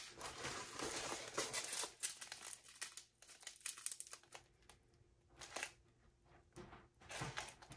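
Small plastic bags of diamond-painting drills crinkling and rustling as they are handled and sorted. The sound is faint and comes on and off, with short pauses.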